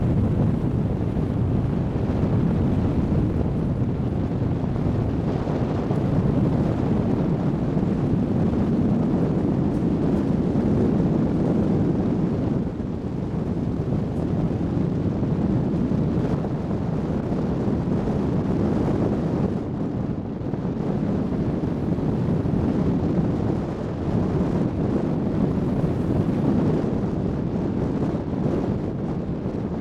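Car driving along a gravel road: a steady low rumble of tyres and engine with wind buffeting the microphone.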